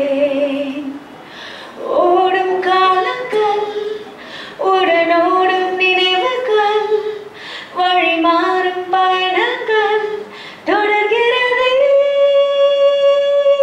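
A woman singing a Tamil song unaccompanied, in short phrases with breaths between them, then holding one long note over the last few seconds.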